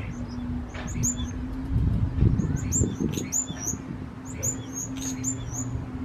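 Small birds nesting inside a sailboat's boom chirping: quick groups of short, high calls, over a steady low hum.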